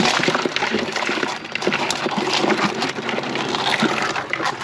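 Live blue crabs tumbling into a plastic bin and scrabbling over one another: a dense, irregular run of clicks, rattles and scrapes of shell and claw on shell and on plastic, loudest at the start.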